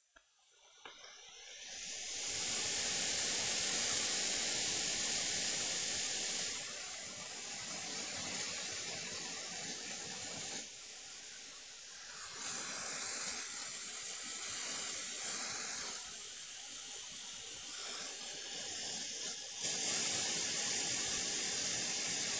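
Hot air rework station blowing: a steady airy hiss that swells up about a second in and then changes in strength a few times. It is heating solder on a laptop motherboard for rework.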